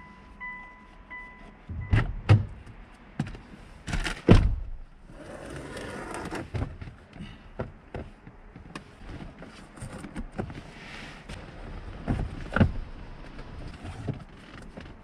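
Hands pulling dashcam wiring out of a car's interior trim and headliner. There are dull thumps and knocks, two close together about two seconds in, again about four seconds in and near the end, with rustling and light clicks between them. A faint electronic beeping stops about a second in.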